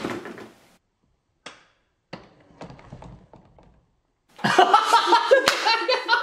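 Short plastic clicks and taps from a Pie Face game toy as its handle is cranked, then, from about four seconds in, children laughing.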